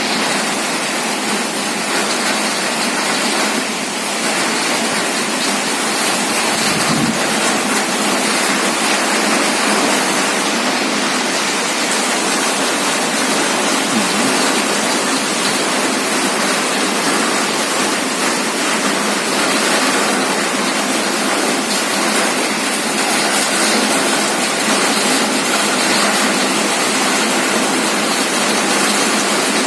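Heavy rain pouring down in a steady, dense hiss that holds at one level throughout.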